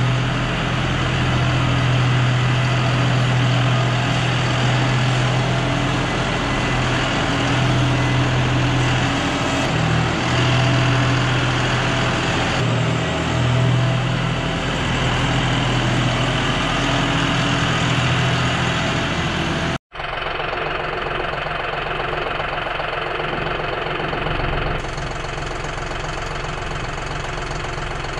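Tractor's diesel engine running steadily with a strong low hum. About two-thirds of the way through it cuts off abruptly and comes back somewhat quieter, with a changed sound.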